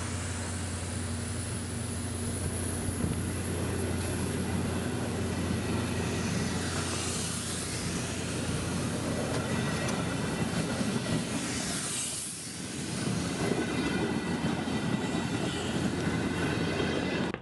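Passenger train at a station platform: a steady low hum under a continuous rush of rail noise, swelling twice, about seven and twelve seconds in.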